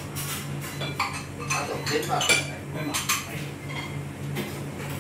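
Chopsticks and spoons clinking and tapping against ceramic ramen bowls and plates, a quick run of small clinks that is busiest in the first three seconds and then thins out.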